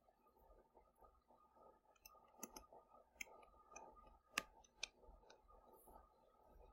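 Near silence with a handful of faint, sharp clicks from a stylus tapping a tablet screen during handwriting, between about two and five seconds in.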